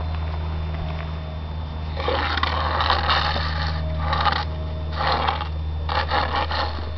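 Broom bristles scraping across the floor: one longer scrape about two seconds in, then three short strokes, over a steady low hum.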